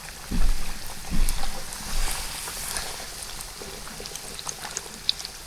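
Floured chicken strips sizzling and crackling as they go into hot frying oil, with a few dull knocks in the first two seconds.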